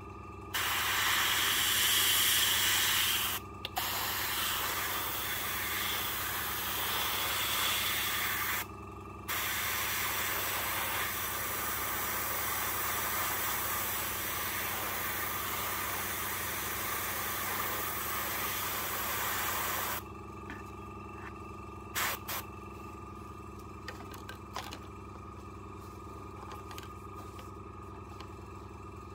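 Fengda starter airbrush spraying paint onto a miniature aircraft: a steady hiss of air in three bursts, broken by two short pauses, that stops about two-thirds of the way through. A few light knocks follow, over a steady low hum.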